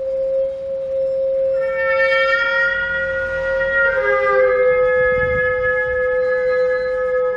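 Bowed musical saw holding one steady, very pure high tone, joined a couple of seconds in by a microtonal double-belled trumpet playing long held notes, which shift down in pitch about four seconds in.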